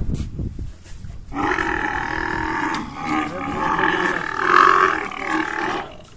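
Camel bellowing as men hold its head: a long groaning call that starts about a second in and is loudest near the end.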